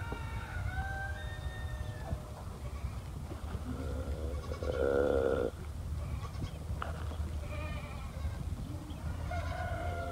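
A goat bleating once, about four and a half seconds in: a single wavering call lasting about a second. Fainter thin calls come before it, over a low steady rumble.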